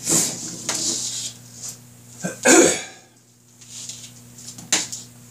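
A man coughing and clearing his throat, three short bursts with the middle one the loudest.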